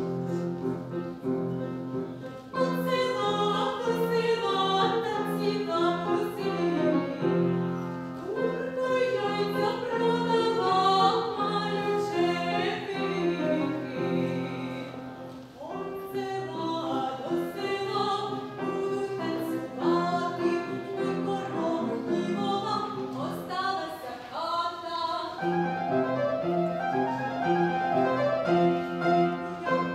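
A woman sings a classical-style solo with vibrato, accompanied on upright piano. The piano plays alone at first, and the voice comes in about two and a half seconds in.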